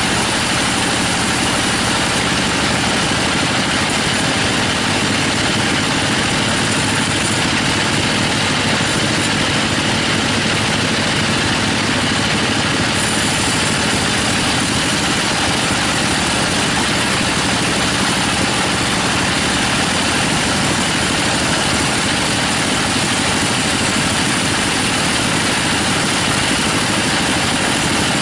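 Sawmill bandsaw running steadily, its band blade ripping lengthwise through a teak log with an even, unbroken machine noise.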